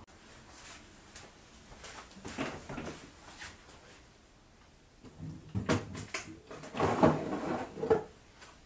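Handling noises at a kitchen door: a series of knocks and clicks, a few around two to three seconds in, then a busier, louder run of knocks from about five seconds to near the end.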